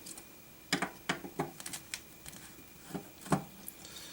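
Light clicks and taps of a screwdriver and small metal parts on a car amplifier's metal case as its bottom plate is unscrewed, a few scattered knocks with the sharpest about three seconds in.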